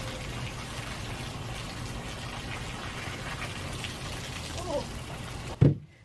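Water from a garden hose splashing as an orange plastic toy tub is hosed out and tipped empty, a steady rush of water. A single loud thump comes shortly before the end.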